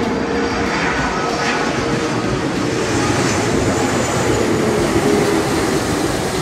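Jet noise from a Garuda Indonesia Airbus A330's two engines as it passes low overhead on landing approach with its gear down: a loud, steady roar.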